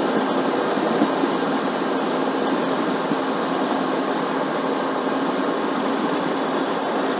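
Steady drone inside a semi-truck's cab: the engine running under a constant fan-like rush of air, with a low steady hum.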